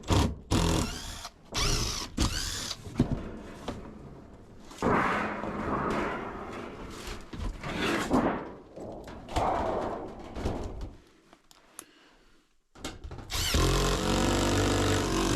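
Gear being handled with irregular clanks and rustles, then a cordless drill runs steadily for about two seconds near the end.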